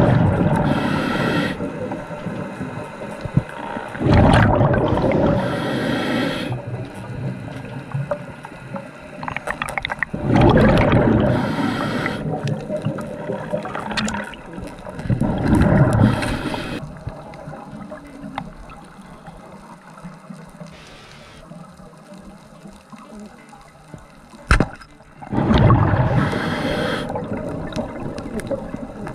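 Scuba diver breathing underwater through a regulator: loud rushing, gurgling bursts of exhaled bubbles every few seconds, with quieter stretches between.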